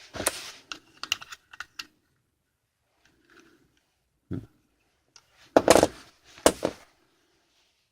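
Small plastic phone-mount parts clicking and knocking as they are handled and pressed together to test the fit: a quick run of light clicks at first, one knock about halfway, then two louder knocks near the end.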